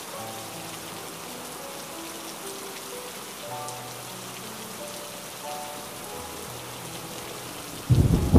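Steady rain, with slow background music of long held notes over it. Near the end a sudden loud clap of thunder breaks in and rumbles on.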